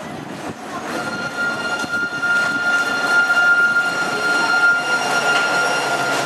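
Alstom Citadis 302 tram pulling into a station and passing close by as it slows, a steady high whine over the rumble of its wheels on the rails, growing louder as the cars draw alongside.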